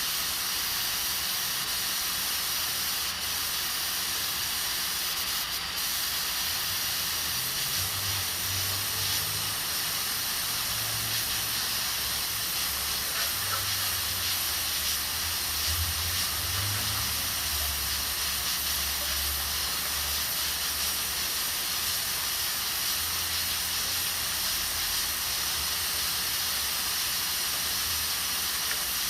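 Aluminium pressure cooker hissing steadily as steam escapes through its valve while it cooks beans under pressure. A low uneven rumble comes and goes under the hiss.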